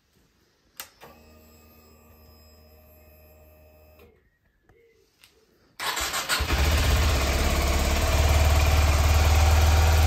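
A click, then a faint steady whine for about three seconds, the fuel pump priming as the ignition comes on. About six seconds in, the Kawasaki Ninja 125's single-cylinder four-stroke engine is cranked by the starter, catches almost at once and settles into a steady idle on its stock exhaust.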